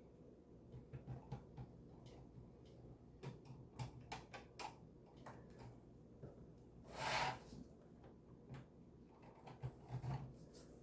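Faint, scattered clicks and taps of small plastic model-kit parts being handled and fitted, with one short hiss about seven seconds in.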